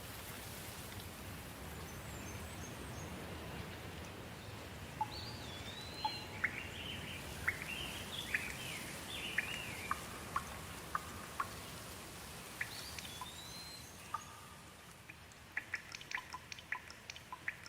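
Steady rain with songbirds calling over it from about five seconds in, chirps and whistles that glide up and down, with the same rising whistle twice. Near the end, a quick run of close water drips.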